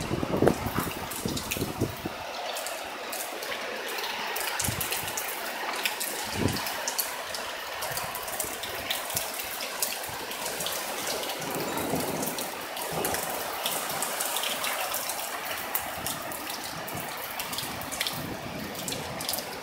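Heavy thunderstorm rain pouring steadily, with many sharp drop ticks close by. Wind buffets the microphone with low rumbles in the first couple of seconds and briefly twice more a few seconds later.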